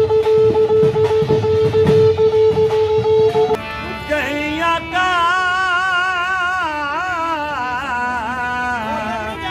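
A curved horn blown in one long steady note over drum beats. About three and a half seconds in it cuts to a harmonium playing and a man singing with a wavering voice.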